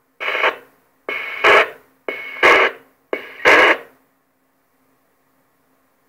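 CB radio receiving distant skip signals: four short bursts of noisy, distorted transmission about a second apart, then the set falls quiet apart from a faint steady hum.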